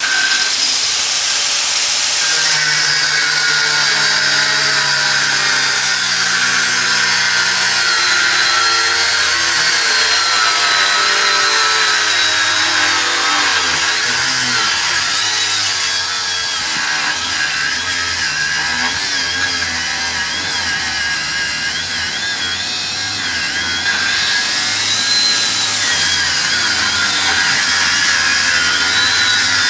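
Mains-powered Makita GA5030R angle grinder cutting into a hardened bike lock, its disc grinding metal with a continuous high whine. The pitch wavers as the disc is pressed into the metal, and it runs a little quieter in the middle stretch.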